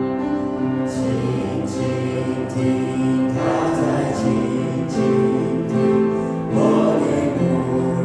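A Christian hymn sung by voices over instrumental accompaniment, with slow, sustained notes.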